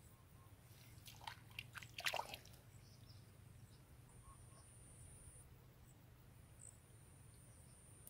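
A hand working wet mud and shallow water: a brief cluster of wet squelches and clicks one to two seconds in. Otherwise near silence, with a faint thin high-pitched steady tone that comes and goes in the second half.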